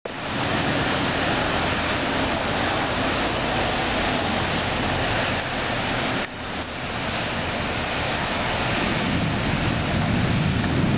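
Heavy rain falling in a thunderstorm, a steady loud hiss that dips briefly about six seconds in, with a low rumble building near the end.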